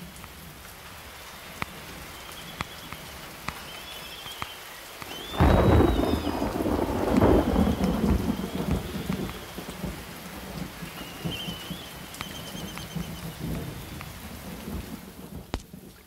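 Steady rain falling in a thunderstorm. A long clap of thunder breaks about five seconds in and rumbles away over several seconds.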